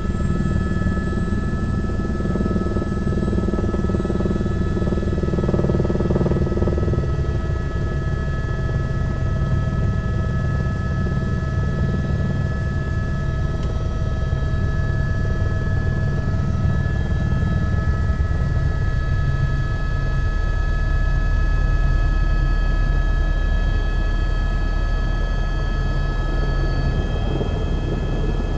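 Helicopter running steadily. Its rotor blades chop rapidly under a constant high turbine whine.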